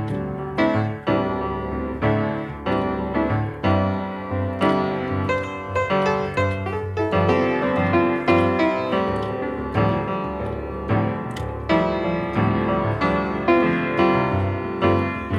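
Background piano music: a steady run of struck notes over sustained bass notes.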